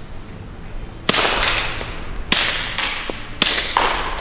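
Three shots from a suppressed 9mm Lone Wolf Glock-pattern pistol, a little over a second apart. Each sharp report trails off in a long echo.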